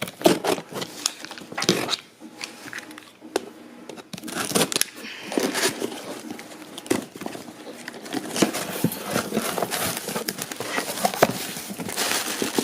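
Packing material rustling and crinkling in the hands as a shipping box is opened and unpacked, in a run of irregular crackles with a quieter spell a few seconds in.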